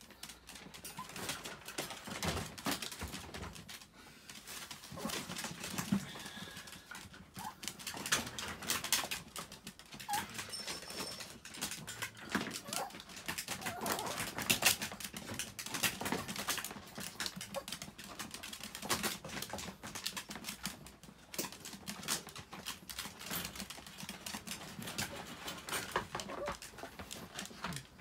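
Pet chihuahuas in wire crates, with irregular clicking, rattling and rustling as the crates are tended.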